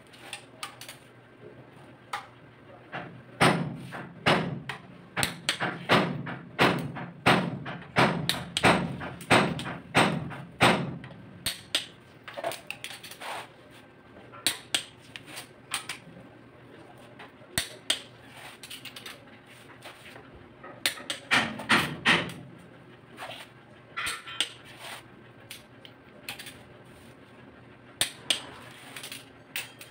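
Sharp clicks and metal knocks from a long-handled socket wrench (torque wrench) working the cylinder head bolts of a Mitsubishi 4D34 diesel engine, coming in irregular clusters, densest over the first third and again a little past two-thirds in and near the end.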